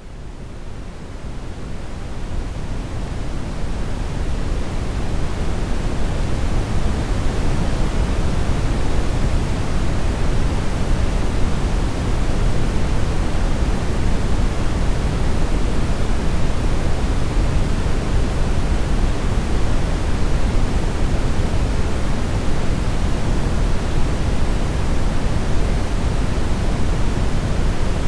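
Brown noise: a steady, deep hiss with most of its weight in the low end. It fades in over the first few seconds, then holds level.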